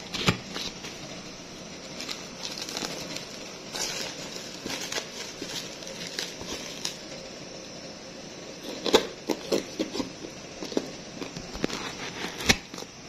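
A parcel wrapped in plastic film and packing tape being handled: irregular crinkling and rustling with scattered knocks, a cluster of sharper clicks about nine seconds in and a louder knock near the end.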